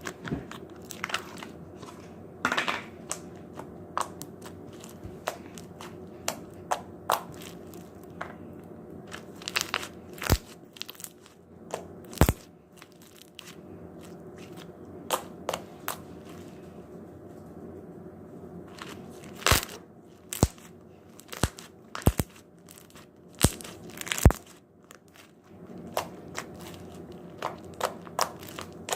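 Slime being squeezed, poked and stretched in the hands, giving irregular sharp clicks and pops, some loud, with quieter stretches between them.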